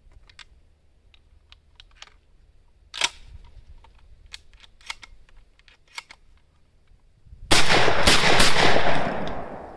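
Shells clicking into the tube magazine of a Girsan MC312 12-gauge inertia-driven semi-automatic shotgun, with a sharper clack about three seconds in. At about seven and a half seconds the shotgun fires 2¾-inch target reloads: very loud, dying away over about two seconds.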